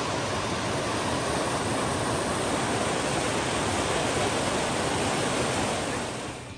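Small waterfall cascading down rock slabs into a pool: a steady, loud rush of falling water that fades out near the end.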